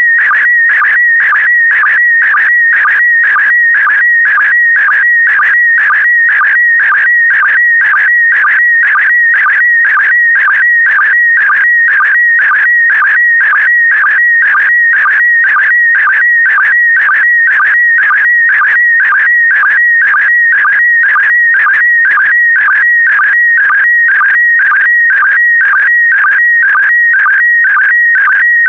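Slow-scan TV signal in PD120 mode sending a picture: a loud, high, warbling electronic tone, broken by a short sync pulse about twice a second, each pulse marking the start of the next pair of image lines.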